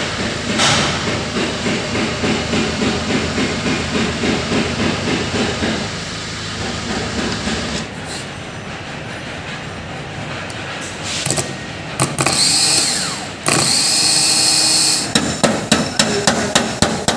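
Workshop repair noises: a fast rhythmic mechanical rattle for the first several seconds, then a car starter motor wired to a battery with jumper leads spinning in two loud bursts, followed by a run of sharp, evenly spaced knocks, about three a second, near the end.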